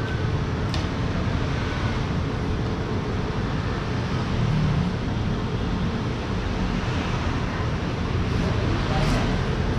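Steady rumble of road traffic, with a couple of faint short clicks.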